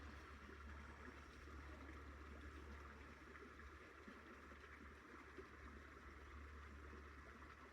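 Faint, steady rush of a mountain stream's running water.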